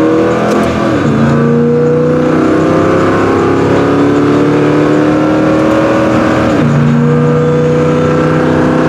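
Small-block 360 V8 accelerating from inside the car's cabin. The engine pitch climbs, drops at an upshift about a second in, climbs steadily for several seconds, drops at a second upshift near the end, then holds nearly level.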